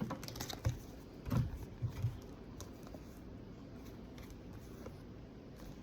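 A cluster of light clicks and soft low taps in the first two seconds, then faint steady room tone.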